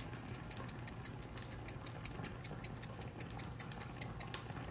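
Jar of dried crushed bay leaves shaken over a pot, the flakes rattling out in a rapid run of light ticks, about six a second.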